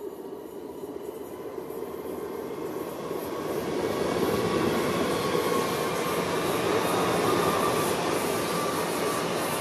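Regional electric multiple-unit train approaching and passing close by at speed: the rumble and rush of its wheels on the track builds and is loud from about three seconds in, with a steady high whine running over it.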